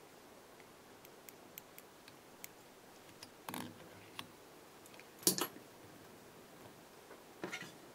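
Faint ticks and small clicks of a whip-finish tool and thread being worked at the head of a fly in a fly-tying vise, with three louder short clicks, the sharpest about five seconds in.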